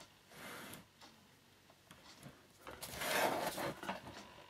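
Handling noise from a laptop being turned over in the hands: plastic and aluminium casing rubbing and sliding against skin and a work mat. There is a soft rustle near the start and a longer, louder scuffing in the second half, with a few light taps.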